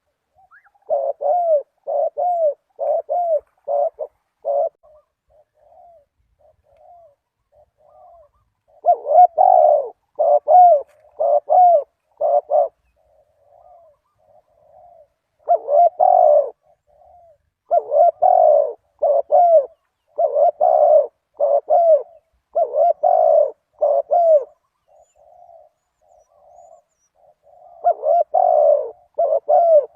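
Spotted dove cooing in repeated bursts of several short coos, with softer, fainter coos between the bursts.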